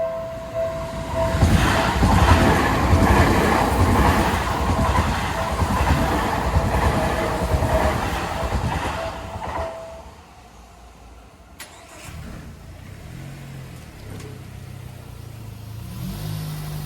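Japanese level-crossing bell ringing in a pulsing electronic ding while a train passes with a loud rumble and wheel clatter; the train noise and the bell both stop about ten seconds in. After that a low vehicle engine hum shifts up and down in pitch.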